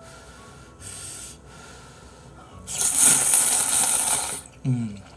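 A man slurping instant ramyeon noodles off chopsticks in one long, loud slurp starting nearly three seconds in, after a shorter, softer rush of breath about a second in. A brief low grunt follows near the end.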